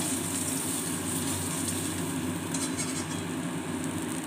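Hot oil sizzling in a steel wok as a fried parshe fish is lifted out with a spatula, with a few short crackles of spatter in the second half, over a steady low hum.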